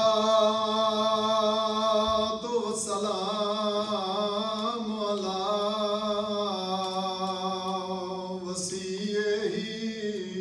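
A man's unaccompanied voice chanting in long held notes, the sung style of a Muharram majlis recitation, broken twice by short breaks.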